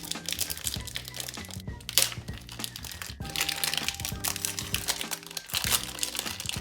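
Packaging being handled and unwrapped, crinkling and crackling in bursts, loudest about two seconds in and near the end, over steady background music.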